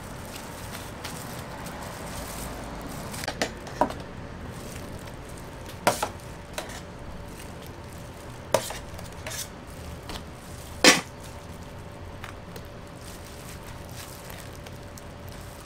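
Utensils at work at a crepe stall: several sharp clicks and knocks, the loudest about eleven seconds in, over a faint steady hum.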